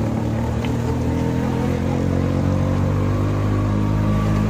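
Auto-rickshaw engine running under way, a steady droning note heard from inside the cab.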